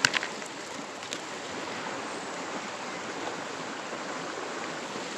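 Shallow mountain river rushing steadily over stones, with a couple of soft clicks, one at the start and one about a second in.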